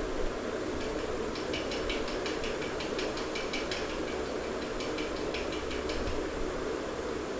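Chicken curry cooking in a pan on a gas stove: a steady hiss, with a run of quick crackles and pops starting about a second and a half in and lasting a few seconds as ground green masala paste goes into the hot gravy.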